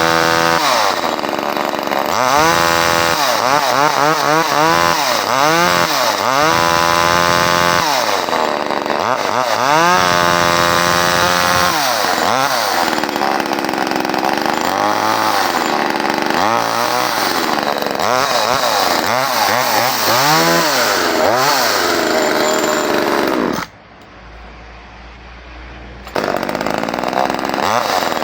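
Small one-handed two-stroke chainsaw, a Nosorog 2500, running on its first start and revved up and down over and over. Near the end the sound drops suddenly to a much quieter level for about two seconds, then the saw is loud again.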